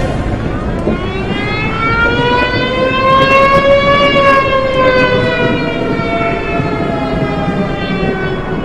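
Siren-like wail rising slowly in pitch to a peak about four seconds in, then falling away slowly, over a steady rushing noise.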